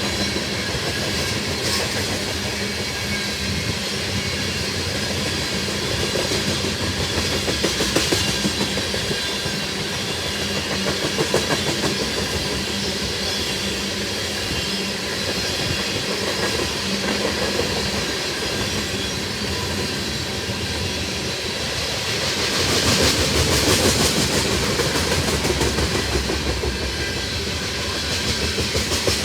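Long freight train of tank cars rolling past, its wheels clattering rhythmically over the rail joints, with a steady rumble that swells louder about 23 seconds in.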